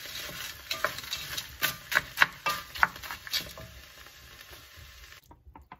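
A wooden spoon stirring frozen peas, onion and garlic in an enamelled cast-iron casserole, with a run of sharp clicks and knocks against the pot, loudest around two seconds in. Under it is a steady sizzle from the melted lard the vegetables are frying in. The sound drops away abruptly shortly before the end.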